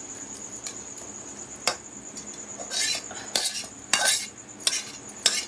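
Metal ladle scraping and clinking against a kadai and a steel bowl while chickpea curry is ladled out: a run of sharp knocks, sparse at first and coming about every half second to second in the second half.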